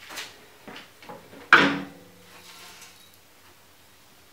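Painted tubular steel motorcycle carrier frame being lifted off a wooden-topped trestle: a few light knocks, then one loud clank about a second and a half in that rings briefly before fading.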